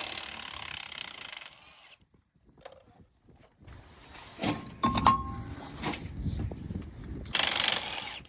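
Metal clanking and rattling, with one ringing metal strike about five seconds in. A steady hiss fills the first second and a half.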